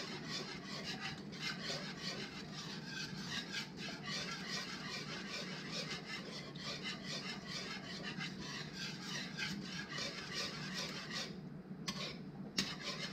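Wire whisk scraping and rasping against the bottom and sides of a stainless steel saucepan as flour gravy is whisked while it thickens, a steady run of quick strokes with a short pause near the end.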